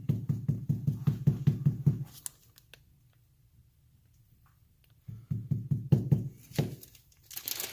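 Two runs of quick light knocks and taps, about seven a second: one for the first two seconds or so and another starting about five seconds in, with a near-silent pause between them. These are hard items being handled on a table while cleaning gear is got out.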